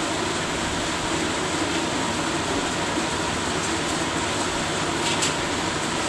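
Steady mechanical hum and hiss, with a faint brief click about five seconds in.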